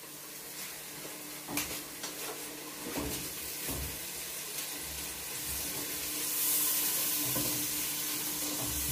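Food sizzling in a pot on a gas burner while it is stirred with a spatula, with a few light knocks of the spatula; the sizzle grows louder about six seconds in. A faint steady hum runs underneath.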